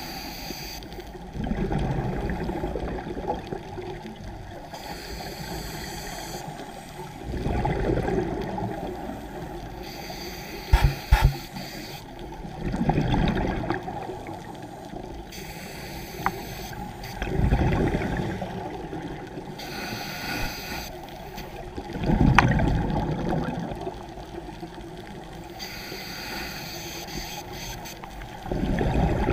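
Scuba diver breathing through a regulator underwater: a hiss on each inhale, then a louder burst of bubbling exhaust, about every five seconds, six breaths in all. Two or three sharp knocks come near the middle.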